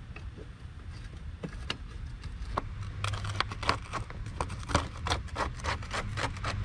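Clicks and light rattling of parts being worked loose and handled in a truck's engine bay, sparse at first and coming thick and fast from about halfway through, over a steady low hum.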